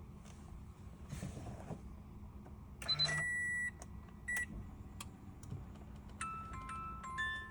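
Electronic warning beeps and chimes from a Toyota 86's cabin, with no engine turning over. A held beep comes about three seconds in and a short beep a second later. Near the end comes a run of short tones that step up and down in pitch.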